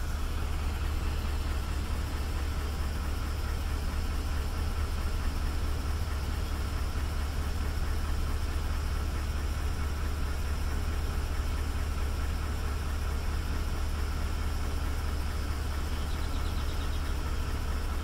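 Toyota Tundra's 5.7-litre 3UR-FE V8 idling steadily with a diesel-like knock, echoing off nearby walls. The knock comes with mild cold weather of about 50 °F and is said to be normal for this engine.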